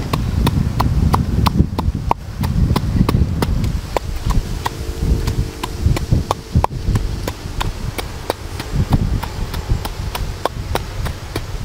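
Wooden pestle pounding in a wooden mortar: sharp knocks at a steady rhythm of about three strokes a second, over low wind noise.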